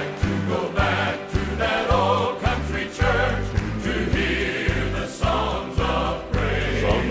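Gospel music: a choir singing over instrumental accompaniment with a steady bass beat.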